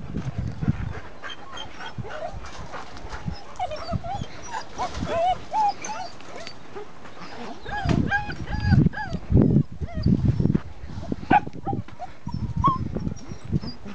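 Belgian Malinois puppies whining and yipping: many short, high whimpers that rise and fall, thickest about four to six seconds in and again near the end. Louder low thumps come between about eight and ten seconds in.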